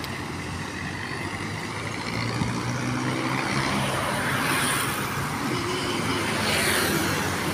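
Road traffic on a busy city street: the engine hum and tyre noise of vehicles going by, getting louder after a couple of seconds.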